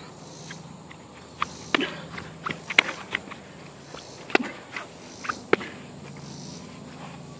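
Sharp slaps and thuds, about ten in quick, uneven succession over a few seconds, from two people scuffling and trading blows on grass.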